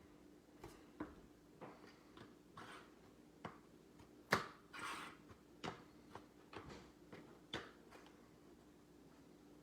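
Handling of sports-card packaging: scattered light clicks and crinkles of packs and box being moved. The loudest is a sharp click about four seconds in, followed by a brief crinkle. A faint steady hum runs underneath.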